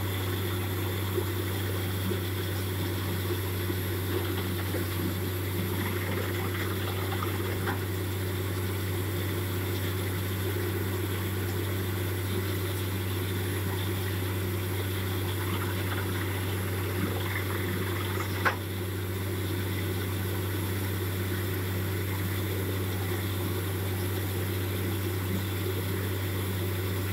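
Borewell drilling rig's engine running steadily while muddy groundwater gushes and splashes out of the borehole, the sign that the bore has struck water. A single sharp knock about two-thirds of the way through.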